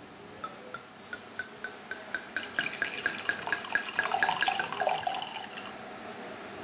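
Red wine poured from a freshly uncorked bottle into a stemmed wine glass: a steady run of glugs, about four a second, rising slightly in pitch as the pour goes on. The splashing into the glass grows louder midway, and the pour stops near the end.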